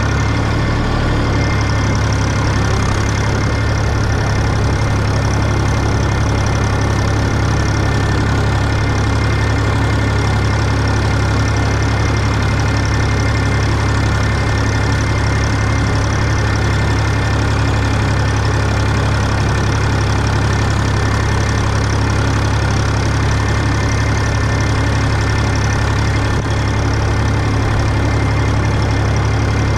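Massey Ferguson 135 tractor engine running steadily while pulling a hay rake, with a constant loud low hum and no change in speed.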